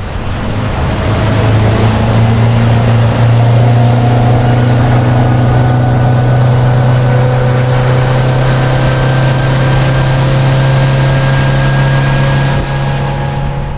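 Outboard motor on a fishing boat running at speed over a rush of wind and water. It comes up to speed about a second in, holds a steady drone, and drops back about a second before the end.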